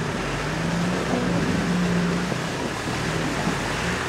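Land Rover Defender's engine revving under load as the 4x4 pushes through a deep mud bog, the pitch climbing for about a second and then falling back.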